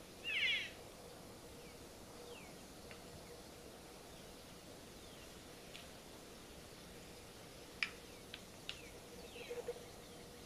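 A short, loud, high-pitched animal call about half a second in. Later come a few faint, high, falling chirps and three sharp clicks, over a faint steady hum.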